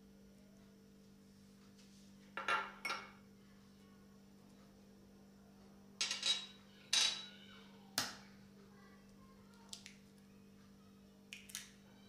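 Small glass dishes clinking and tapping against a glass mixing bowl as ingredients are tipped in. There are two clinks a couple of seconds in, a louder cluster about halfway, a single sharp knock soon after, then a few lighter taps, all over a faint steady hum.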